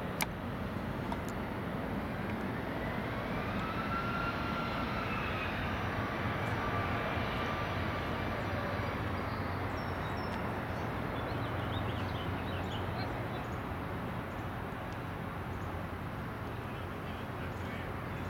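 Jet airplane passing overhead: a steady rumble with an engine whine that rises and then slowly falls in pitch about three to ten seconds in.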